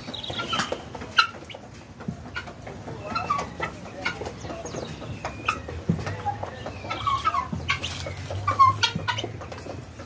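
Farmyard poultry, helmeted guineafowl among them, giving many short clucks and calls, several birds overlapping. Scattered sharp clicks run through it.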